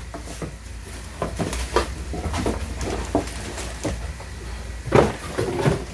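Cardboard box of a non-stick cookware set and its plastic wrapping being handled, with rustling and a series of light knocks and taps. One louder thump comes about five seconds in.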